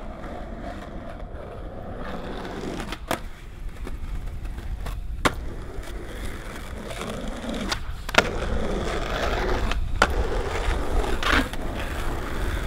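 Skateboard wheels rolling over an asphalt street, a steady rumble, with a few sharp clacks a couple of seconds apart.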